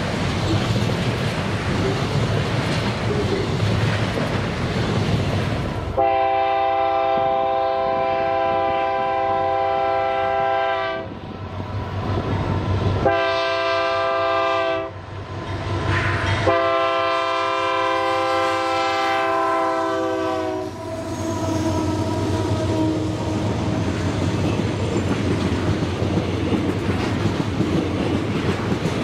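A train running by with steady noise and rail clatter; about six seconds in, its locomotive horn sounds three blasts, long, short, long, over the moving train, after which the train noise carries on.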